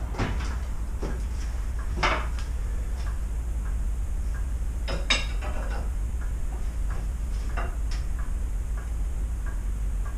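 Metal clinks and taps as a cast-iron hand printing press is worked on at its top. The clearest come about two seconds in and a pair around five seconds in, over a steady low hum. Faint regular ticking, about two a second, comes in near the end.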